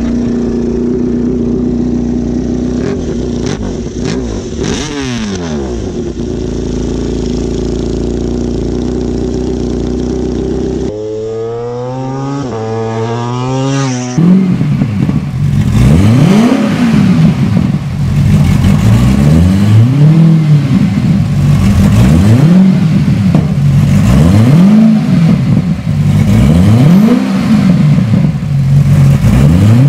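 Honda RC213V's V4 engine idling steadily, then blipped to rising revs. From about halfway on, an engine is revved up and down over and over, about once every two seconds.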